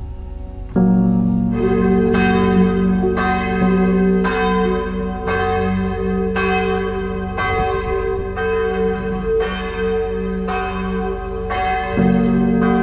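Church tower bells pealing, starting suddenly about a second in. Strikes come roughly twice a second over a long, steady hum.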